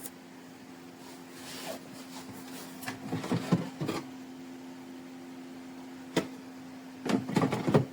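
Steady mechanical hum from the robot vacuum's docking station, with bursts of clattering and a sharp click from plastic parts being handled.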